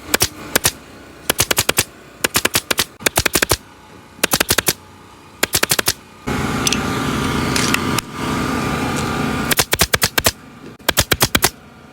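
Upholstery staple gun firing in rapid bursts of four to six staples at a time, about eight bursts in all, as booth cushion covers are stapled on. A steady motor hum runs behind the bursts from the middle into the later part.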